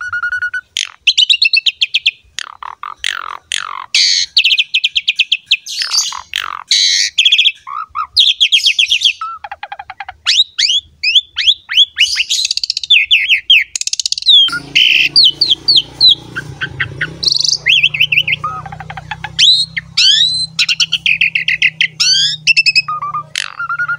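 Javan pied starling (jalak suren) in full song: a long, fast run of varied whistles, chirps and harsh notes with no real pauses. A low steady hum joins under it about halfway through.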